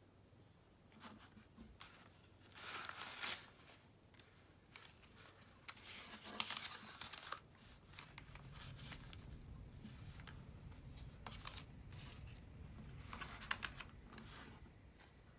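Faint rustling of folded origami paper being handled and pressed by hands, in a few short swishes: about three seconds in, again around six to seven seconds, and near the end.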